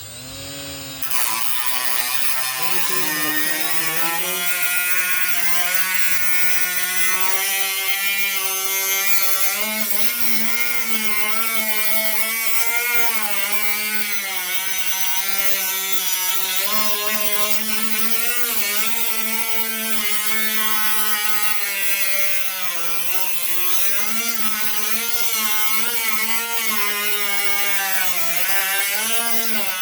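Electric cutting tool running through the sheet metal of a car's rear quarter panel. The motor winds up over the first couple of seconds, then its pitch sags and recovers again and again as the blade bites into the metal.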